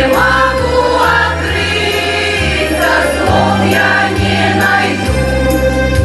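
Amateur choir singing a song together over instrumental accompaniment with steady bass notes.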